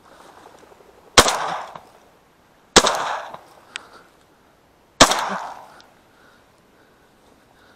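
Three shotgun shots, the second about one and a half seconds after the first and the third about two seconds later, each with a short echoing tail.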